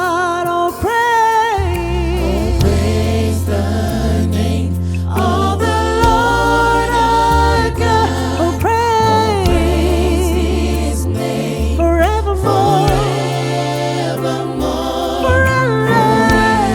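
Gospel music: voices singing together with vibrato over a steady bass line.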